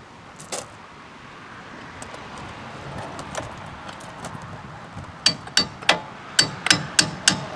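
Hammer striking metal on a new front wheel hub assembly being worked into place: a few light clicks, then from about five seconds in a run of sharp ringing blows, about three a second.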